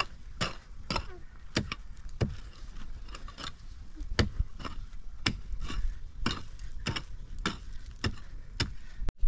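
Repeated chopping strikes on wood, about two a second with an uneven beat; the sound cuts out briefly near the end.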